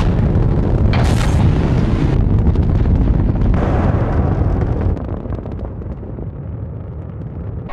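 Saturn V's five first-stage F-1 rocket engines firing at liftoff: a loud, rough rumble with crackle in the first couple of seconds. It drops in level about five seconds in.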